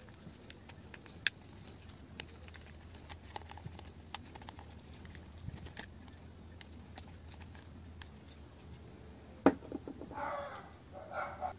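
Small clicks and light scrapes of a screwdriver backing screws out of a cordless drill's plastic gearbox housing, with a sharp click a second in. Near the end a loud click and two short rasping scrapes as the plastic gearbox housing is worked loose.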